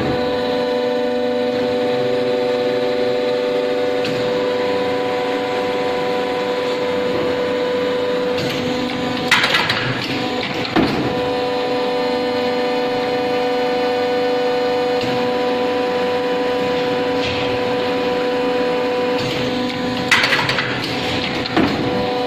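1986 Meiki 50-ton hydraulic plastic injection moulding machine running, its electric motor and hydraulic pump giving a steady whining hum. Twice, about ten seconds apart, a short group of knocks and clatter breaks in, as the machine works through its moulding cycle.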